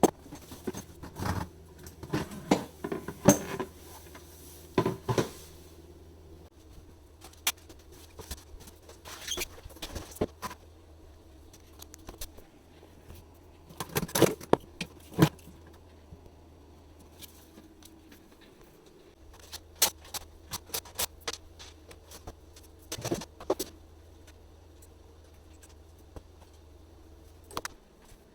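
Scattered light clicks, taps and knocks, some in quick clusters, from small parts and tools being handled during hand work. A faint steady low hum runs underneath.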